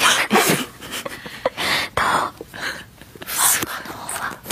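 Close, breathy whispering and puffs of breath into a dummy-head binaural microphone, in short irregular bursts, some with a soft voiced giggle.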